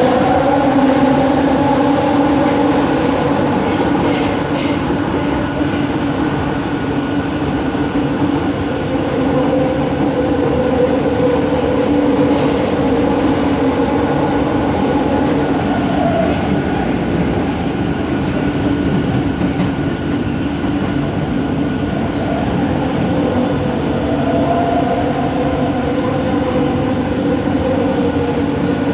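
Bombardier Innovia ART 200 metro train running, its linear induction motors giving a steady whine in several tones over the rolling noise, with the middle tones slowly sinking and rising in pitch as the speed changes. This is the odd motor sound that sets this train apart.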